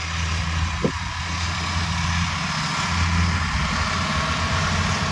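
Kubota combine harvester's diesel engine running steadily, with the even whir of its machinery and one short click about a second in.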